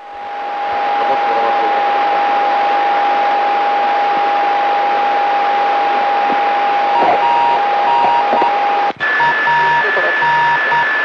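Open radio channel hissing with static, a steady tone running through it. About nine seconds in it cuts out for an instant, then returns with the tone at a higher pitch, with short beeps repeating.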